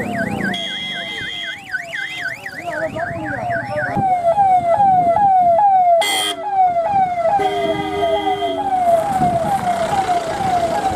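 Sirens of a police and escort vehicle convoy, several at once: a fast up-and-down yelp for the first few seconds, then a repeating falling whoop about twice a second. A steady vehicle horn blast sounds around eight seconds in.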